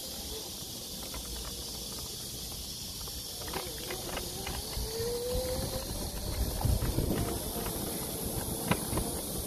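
Electric scooter ridden over rough, gravelly asphalt: a steady hiss of rolling and wind noise with small knocks and rattles from the bumps, getting louder about two-thirds of the way in. A faint whine rises in pitch about five seconds in.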